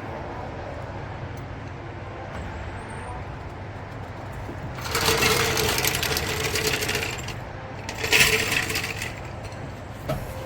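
Two bursts of rapid mechanical rattling over a steady low hum: a longer one about halfway through and a shorter, louder one a little later.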